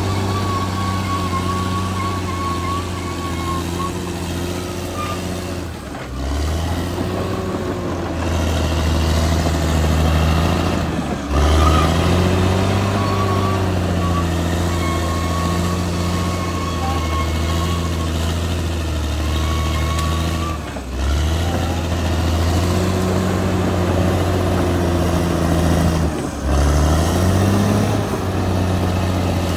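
Caterpillar D6R XL bulldozer's diesel engine running steadily under load, its pitch dropping and recovering a few times, with a faint high whine above it.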